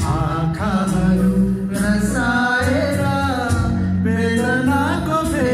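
A man singing a Nepali song into a handheld microphone, his voice gliding and bending through the melody over steady instrumental accompaniment.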